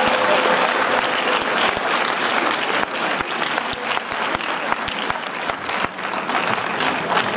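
Cinema audience applauding: many hands clapping in a dense, continuous patter, a little louder at the start.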